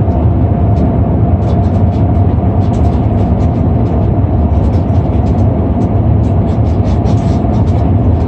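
Cabin noise inside an Airbus A340-600 airliner: a loud, steady rumble of airflow and engines, with light scattered rattles.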